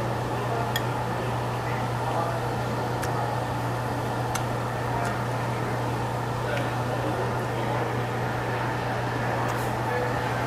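Steady fan-like machine hum with a low drone, and a few light clicks of a spoon against a bowl while a man eats.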